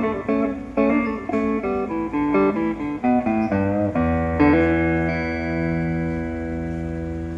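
Guitar song intro played back through a portable speaker with a 5-inch driver and a class D amplifier: quick picked guitar notes, then about four seconds in a held chord with a deep bass note that rings on and slowly fades.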